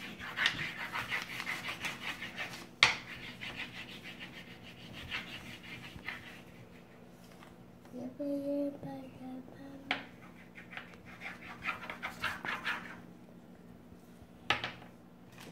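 Crayon scribbling on paper over a wooden table: runs of quick scratchy back-and-forth strokes, with a few sharp taps, the loudest about three seconds in.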